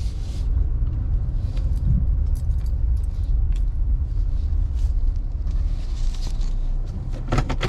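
Rummaging through the contents of a garbage bin: scattered rustles, clicks and rattles of packaging, with a cluster of sharper knocks near the end, over a steady low rumble.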